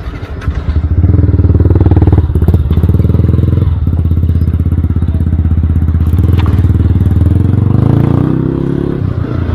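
Yamaha R15 V2's single-cylinder engine running as the bike pulls away and rolls slowly over a rough dirt track, with a few knocks in the first seconds. The revs rise near the end, then drop off.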